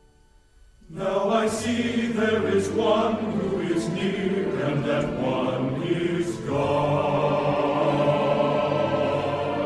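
After about a second of near silence, choral music begins: a choir singing with accompaniment, loud and sustained.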